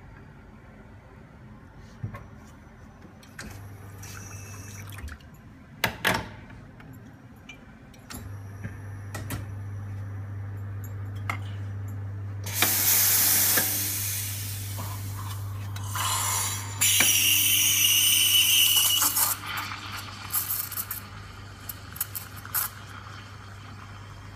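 Espresso machine at work: a sharp knock about six seconds in, then the pump's steady low hum from about eight seconds as a shot pulls. The steam wand is purged with a loud hiss about twelve seconds in, and milk is steamed in a steel pitcher with a louder steady hiss for about two and a half seconds, followed by a few light clicks.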